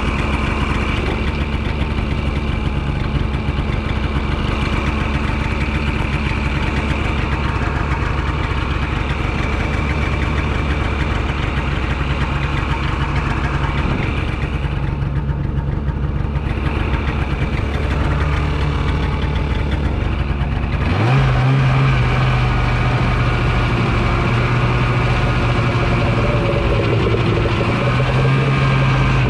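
Two-stroke snowmobile engine running steadily at a low, even speed. About 21 seconds in, the throttle opens, the engine's pitch jumps up quickly, and it then holds at a higher steady speed.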